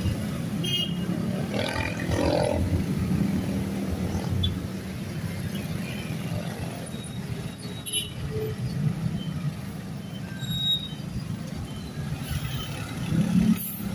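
Street traffic: motorcycles, scooters and cars driving past, with a steady low engine rumble.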